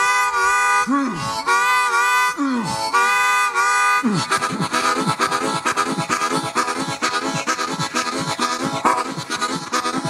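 Solo blues harmonica imitating a train: three long held whistle chords, each ending with a falling bend, then from about four seconds in a fast, even chugging rhythm of short breathy strokes.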